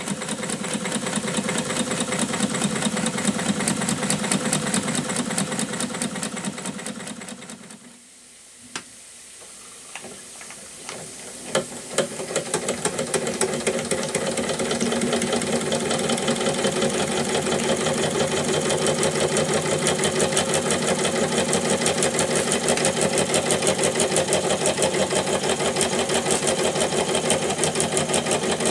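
Weeden No. 34 toy live-steam engine running fast: a rapid, even clatter from its piston and flywheel, with a hiss of steam. The sound drops away for a few seconds about a third of the way in, with a few single clicks, then returns steady.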